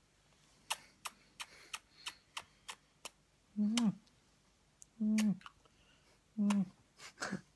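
Wet mouth clicks and lip smacks from a man sucking on someone's fingers: a quick run of clicks, then three short, low hummed 'mm' sounds about a second and a half apart, with more clicks near the end.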